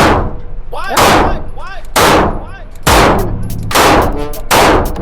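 A striker-fired pistol fired six times at a steady pace of about one shot a second, each shot sharp and followed by a short ring of echo.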